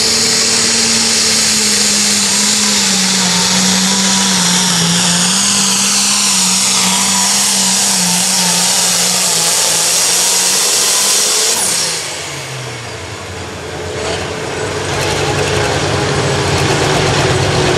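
Turbocharged diesel engine of an International 3488 Limited Pro Stock pulling tractor at full throttle under load, its note sagging slightly as the sled bears down. About twelve seconds in the throttle is cut at the end of the pull: the engine note falls away and quietens, then it runs on more evenly.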